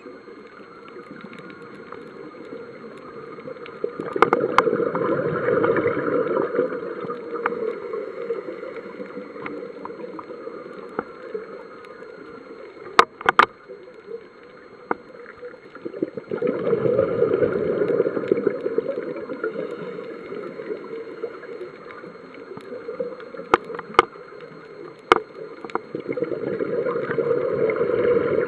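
A scuba diver's exhaled bubbles from the regulator, heard underwater: three long bursts about twelve seconds apart, each a rush of bubbles over a low rumble. A few sharp clicks fall between them.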